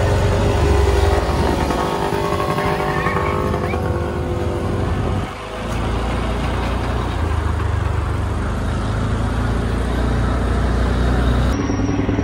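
Fire engine's diesel engine running steadily, with a deep low rumble. For the first few seconds a higher engine note with several pitches rides over it.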